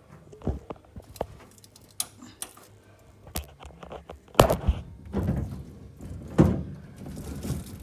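A series of separate knocks and clicks, the loudest about four and a half seconds in, from a DVR being handled and its cables plugged back in.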